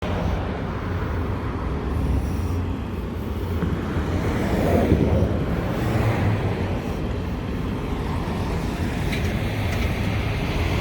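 Steady low rumble of vehicle engines idling in stopped highway traffic, swelling slightly about five seconds in.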